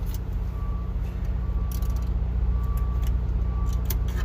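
Truck engine idling steadily, with a short electronic chime from the vehicle beeping about once a second and a few light clicks of work on the steering column.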